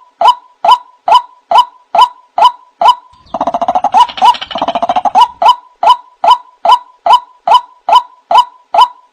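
White-breasted waterhen calls from a bird-lure recording: short calls repeated steadily about twice a second. A few seconds in, a burst of dense, rapid chattering lasts about two seconds, then the even calls resume.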